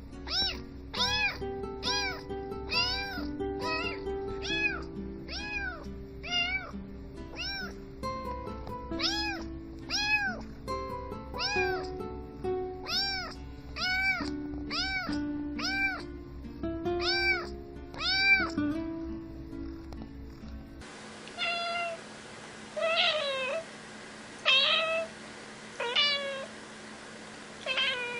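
Cat meowing over and over in an even, rapid series, a little under two calls a second, over background music. About two-thirds of the way through it cuts to a cat meowing alone, five separate calls about a second and a half apart.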